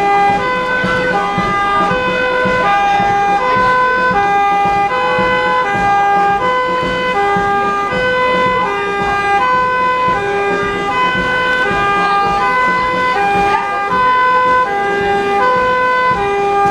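Two-tone siren sounding continuously, a higher and a lower note alternating about twice a second.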